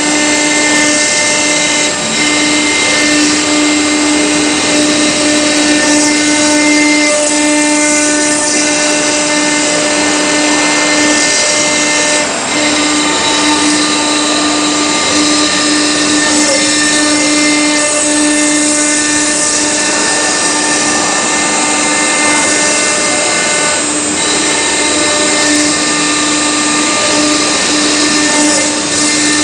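Marble CNC router spindle running steadily with a high whine, its engraving bit carving a marble slab under a spray of coolant water, over a continuous hiss.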